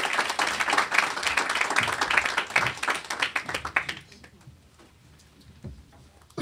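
Audience applause, a dense patter of many hands clapping that dies away about four seconds in, leaving a quiet room with a few faint knocks.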